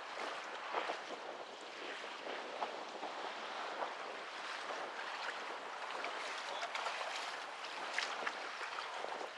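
Wind and choppy water lapping against a kayak hull: a steady rushing hiss broken by scattered small sharp ticks.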